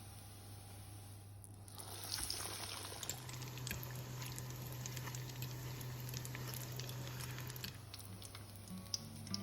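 Breaded chicken Kiev cutlets frying in hot oil: a crackling sizzle that starts about two seconds in, over a low steady hum.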